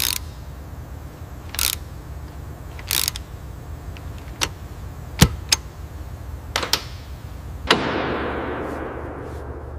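Ratchet wrench and tools clicking and clanking on steel mounting bolts as an aircraft engine is bolted onto its mount, a handful of separate sharp clinks over a steady low hum. About three-quarters through, a hiss starts and fades away over a couple of seconds.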